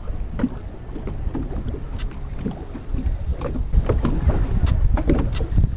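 Wind buffeting the microphone aboard a sailboat under way, a heavy low rumble that grows stronger about halfway through, with irregular splashes and knocks of water against the hull.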